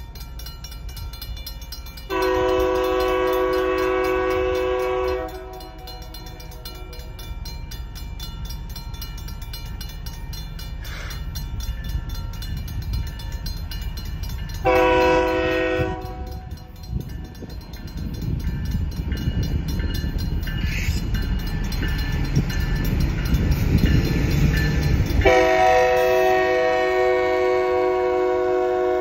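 Union Pacific diesel locomotive's multi-tone air horn sounding the grade-crossing warning: a long blast about two seconds in, a short blast halfway through, and another long blast near the end as the locomotive reaches the crossing. Under it, the locomotive's engine and wheel rumble grow louder as it approaches slowly, and a crossing signal bell rings faintly.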